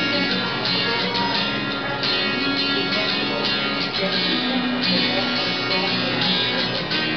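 Background pop music: an instrumental passage led by strummed acoustic guitar over a steady beat, between sung lines.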